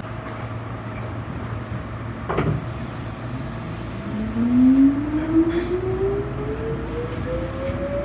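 Tobu 9000 series electric train's traction motors whining, the tone climbing steadily in pitch from about halfway through as the train accelerates, heard from inside the car. A single sharp knock comes about two and a half seconds in.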